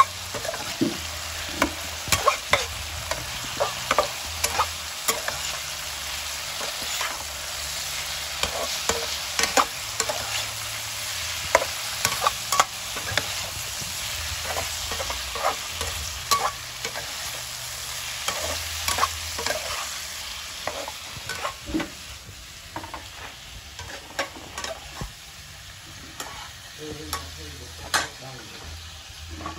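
Tofu cubes stir-frying in chili sauce in a nonstick wok: a steady sizzle with frequent clicks and scrapes of a metal spatula against the pan. The sizzle eases off about two-thirds of the way through.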